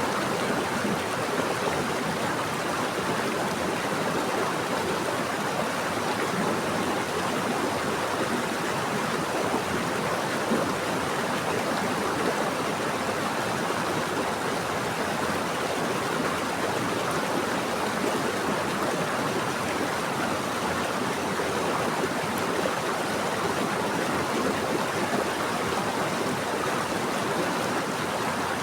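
Steady rushing of flowing water, a stream or small cascade running over rocks, even and unbroken.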